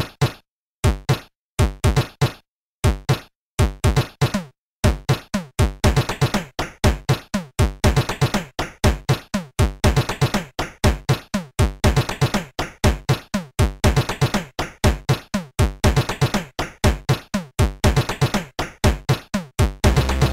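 Electronic background music with a drum-machine beat: a few beats with gaps of silence between them at first, then a steady fast beat of about four a second.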